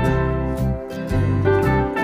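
Background music: an upbeat instrumental with plucked and slide guitar over a steady bass and beat.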